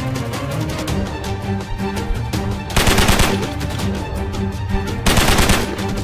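Background music, broken twice by short bursts of rapid machine-gun-style fire, each about half a second long. The first comes near the middle and the second near the end.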